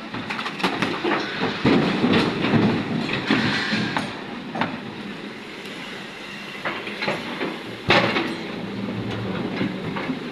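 Excavator loading stone into a tipper truck: rocks clatter and knock against the steel body, thickest in the first few seconds, with one sharp loud bang about eight seconds in, over the steady running of the excavator's engine.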